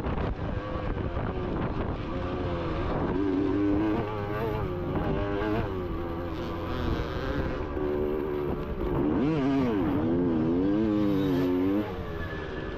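Motocross bikes racing on the track, their engines revving up and dropping back repeatedly as they accelerate and shift, with wind buffeting the microphone.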